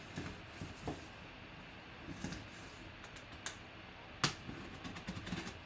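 Folding knife slitting packing tape on a cardboard box, with cardboard handling rustles and scattered sharp clicks; the loudest click comes about four seconds in.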